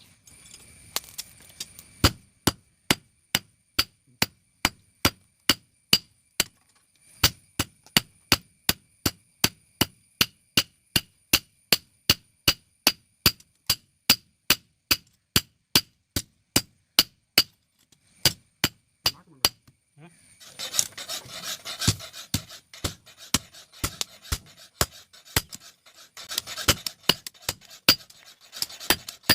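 Hammer blows on metal at an anvil, about two a second, each ringing briefly. About twenty seconds in, a rough rasping, scraping noise joins in between the blows.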